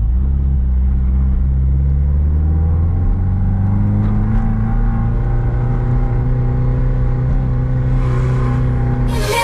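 Porsche 356's air-cooled flat-four engine heard from inside the cabin while driving. Its pitch climbs gently over the first few seconds, then it runs at a steady drone.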